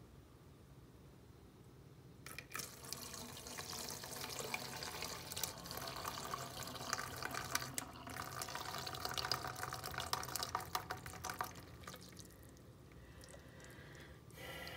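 Hot cooking water poured off a pot of instant noodles into a sink, splashing in the basin. It starts about two seconds in, runs for about nine seconds, then fades to a faint trickle.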